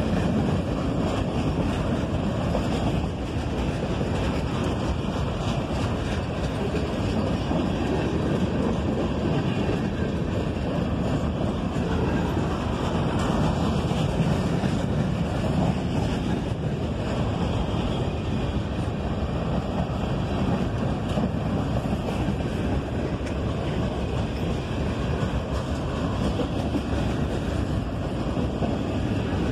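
Norfolk Southern freight train rolling past, a steady, unbroken rumble of wheels on rail, with wind buffeting the microphone.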